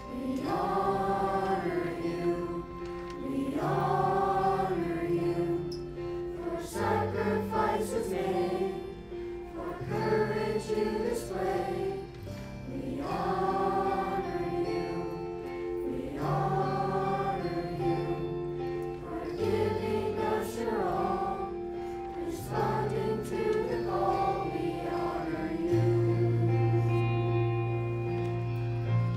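Junior high and high school choir singing over sustained low accompaniment notes, in phrases a few seconds long.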